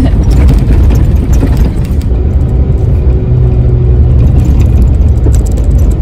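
A 4x4 driving along a rough dirt trail: a loud, steady rumble of engine and tyres over the dirt, with scattered knocks and rattles from the bumpy surface.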